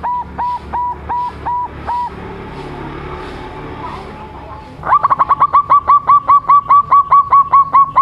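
Young zebra dove (perkutut) cooing in quick runs of short, clipped notes: a first run slows and stops about two seconds in, then after a pause a second, louder and longer run of about fifteen fast notes comes near the end.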